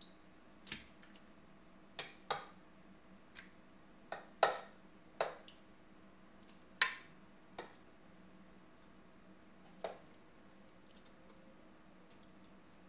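A fork clicking against a plate and the slow cooker's pot as raw chicken tenderloins are moved into it one by one. About a dozen separate sharp clicks and knocks, irregularly spaced.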